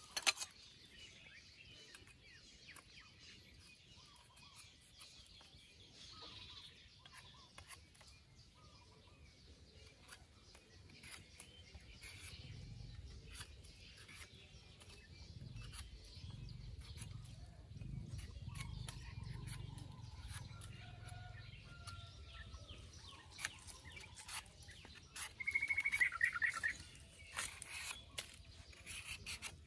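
Green mango being peeled with a hand peeler: short, repeated scraping clicks. Birds chirp, and a fast bird trill near the end is the loudest sound.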